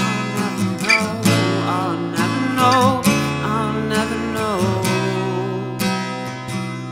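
Gibson acoustic guitar strummed in a steady rhythm. A man's voice sings a long, wavering line over it from about a second in until nearly five seconds in.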